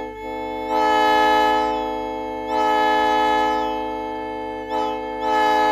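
Multi-chime locomotive air horn sounding a steady chord of several notes, swelling louder in three long blasts with a short toot just before the last.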